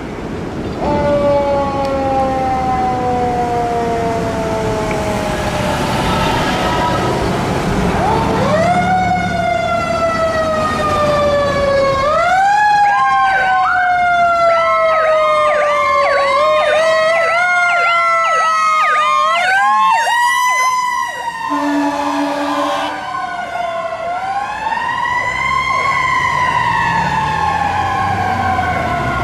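Seagrave tower ladder fire truck responding with sirens: a mechanical siren repeatedly winds up and slowly coasts down in pitch, overlaid in the middle by a fast yelping siren, with a short air horn blast a little after the middle.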